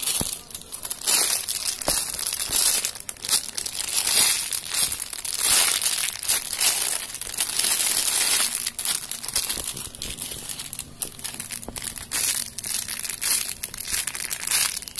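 Clear plastic bags crinkling as the squishy toys inside them are picked up, squeezed and turned over by hand: an irregular run of crackles, busiest in the first half and lighter after about eight seconds in.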